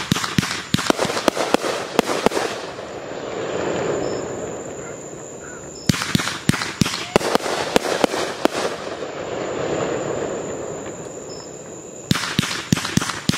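Consumer firework cakes firing: quick volleys of sharp cracks and bangs, in three bursts about six seconds apart. Between the bursts a rushing noise swells and fades.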